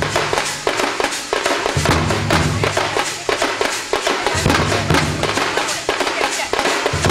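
Fast Tamil folk percussion music: dense, sharp drum strokes several times a second, with a deep low note that comes back about every two and a half seconds.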